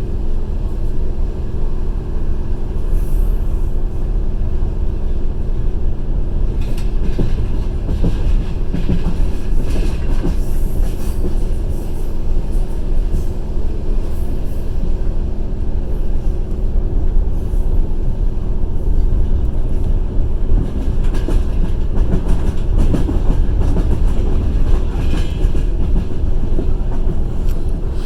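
Passenger train running along the line, heard from inside the carriage: a steady rumble of wheels on rails with scattered clacks and a steady low hum.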